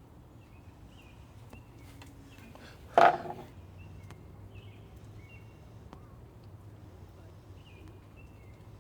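Songbirds chirping on and off in short calls over a steady low outdoor hum, with one brief loud sound about three seconds in.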